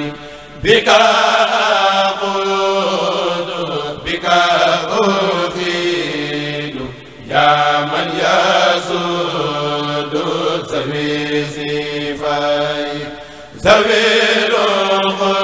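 Men chanting a Mouride khassida, an Arabic religious poem, unaccompanied. They sing in long melodic phrases of about six seconds, with brief breaks for breath about half a second in, about seven seconds in, and near the end.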